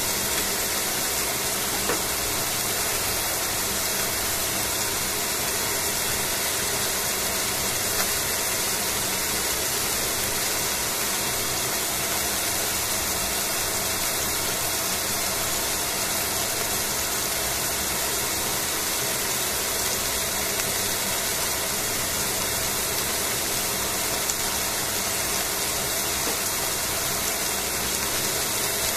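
Chicken thigh frying in a stainless steel pan: a steady sizzle of bubbling fat and juices, with a few faint pops.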